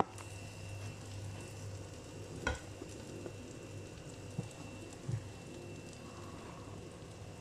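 Food frying in a non-stick pan, a steady gentle sizzle, with a wooden spatula knocking against the pan once sharply about two and a half seconds in and lightly twice later.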